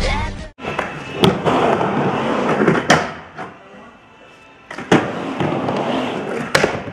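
Music cuts off abruptly about half a second in. Skateboard wheels then roll on a wooden ramp, broken by four sharp clacks of the board striking the ramp, with a quieter lull in the middle.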